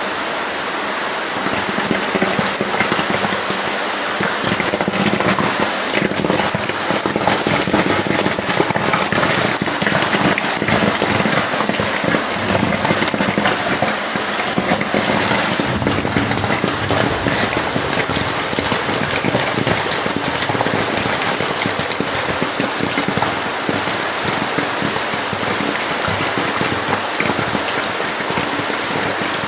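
Drain water rushing and splashing after the drain plug is pulled: a steady, loud hiss of falling water full of crackling splatter, swelling slightly a second or two in.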